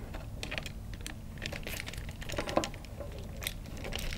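Screwdriver turning the green ground screw on a wall light switch to clamp a bare copper ground wire: small irregular metallic clicks and scrapes.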